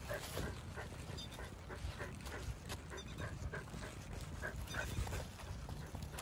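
Brindle Akita dog making short, high whimpers, often two close together, over a steady low rumble.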